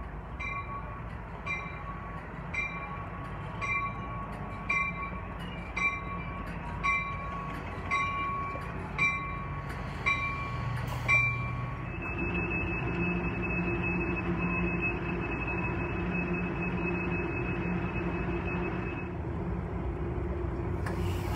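Amtrak passenger train pulling in beside the platform, its bell ringing steadily about once a second. The bell stops about twelve seconds in, leaving the train's steady running sound with a high whine and a low hum.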